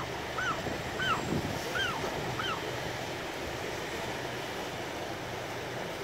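Gull chicks peeping: a string of short rising-and-falling calls, about one every half second, that stop about two and a half seconds in. Steady surf and wind noise runs underneath.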